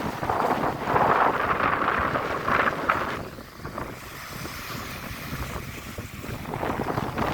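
Wind buffeting the microphone over the wash of sea waves, surging for the first few seconds and then easing off.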